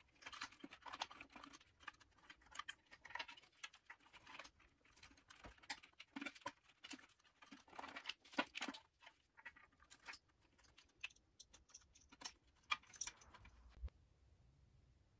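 Hands handling and tucking bundled wires and plastic connectors into the scooter frame beside the motor controller: irregular rustling and light clicks that stop near the end.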